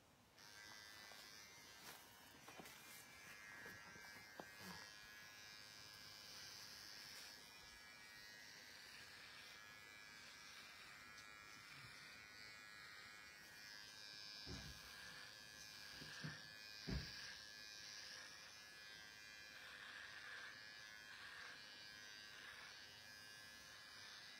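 Electric hair clipper buzzing steadily and faintly as it shaves a woman's head bald. A few soft low thumps break in past the middle.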